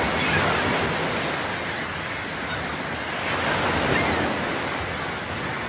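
Ocean surf breaking and washing in, a steady rush that swells twice, near the start and again around four seconds in.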